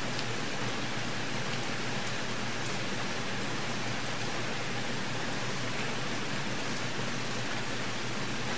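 Steady, even hiss that does not change, with no other events.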